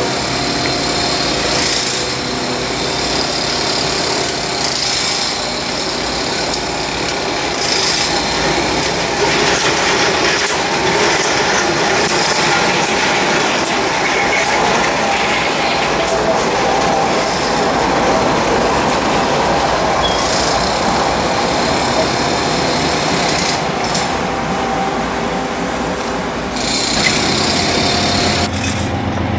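Freight train passing close by: its GE diesel locomotives running, with the steady noise of steel wheels rolling on the rails.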